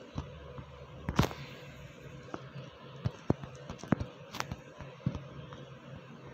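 Irregular sharp taps, roughly one a second, of fingertips on a phone touchscreen while typing on the on-screen keyboard, over a faint steady hum.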